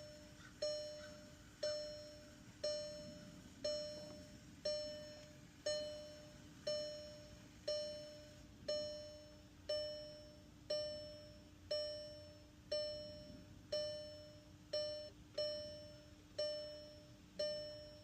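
A warning chime dinging about once a second, each ding a single bell-like tone that fades quickly, repeating steadily while the car is held in key-programming mode.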